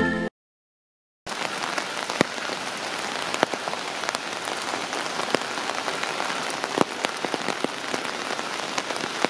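A tune cuts off at the start, followed by about a second of silence. Then steady rain falls, an even hiss with many individual drops ticking sharply.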